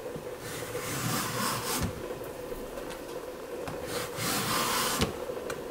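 Vegetable peeler scraping along a raw zucchini, shaving off thin strips in a few long strokes.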